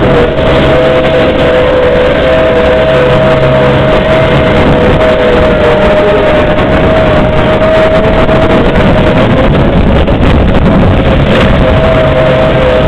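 John Deere riding lawn tractor's engine running at a steady speed as the tractor drives, with a steady whine held over the engine noise.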